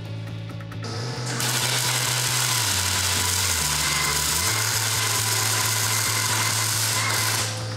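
Wire-feed welder arc crackling steadily as a bead is laid on steel plate, starting about a second in and stopping shortly before the end. Background music with a bass line runs underneath.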